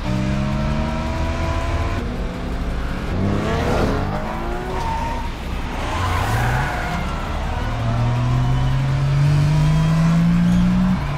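Sports car engines revving hard as the cars race past, with pitch sweeps as they go by around 3 to 4 seconds and 6 seconds in. From about 8 seconds in, one long engine note climbs steadily as a car accelerates.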